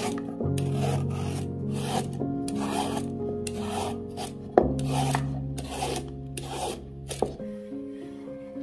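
Julienne peeler scraping strips off a raw carrot on a wooden board, in short strokes about twice a second, with one sharp tap about halfway through. The strokes stop a little over a second before the end.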